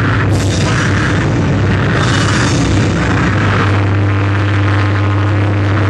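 Live noise band playing loud: a dense wall of distorted noise over a steady low drone. A harsher band of noise swells about once a second in the first half, and the low drone grows stronger about two-thirds of the way through.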